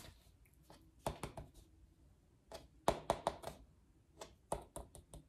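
Faint clicks and taps from a handheld poster board being handled: about three near a second in, a quick group around three seconds, and a few more near the end.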